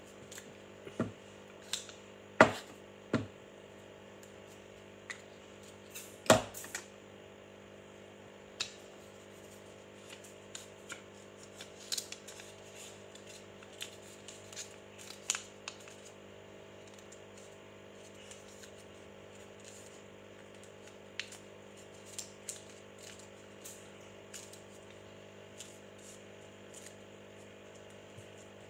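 Small objects handled by hand, giving scattered light clicks and taps, the sharpest two about two and six seconds in, over a steady low hum.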